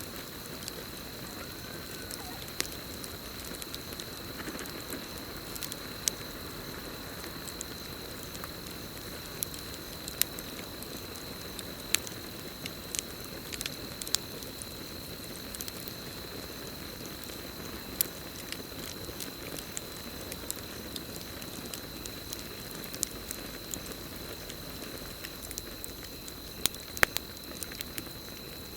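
Campfire crackling: a low hiss of burning wood with sharp pops scattered irregularly, a few louder ones near the end. A steady high-pitched cricket trill runs underneath.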